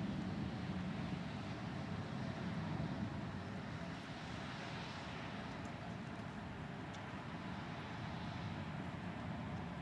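Thunder rumbling low and slowly fading over the first few seconds, then a steady low rumble and hiss.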